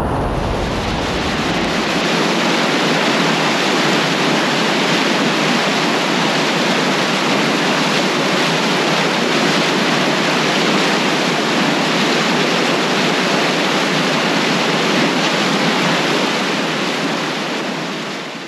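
River Deel floodwater rushing under a bridge: a loud, steady rushing of high water forced through the bridge, with no let-up, fading out at the very end.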